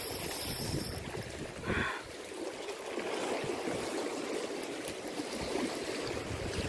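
Choppy, churning lake water rushing and splashing against a concrete bank, a steady wash of noise, with wind rumbling on the microphone for about the first two seconds.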